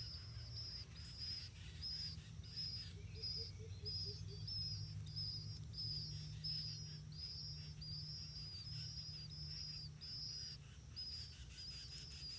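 A bird repeating a short, high chirp about twice a second, steady and regular, over a low steady rumble.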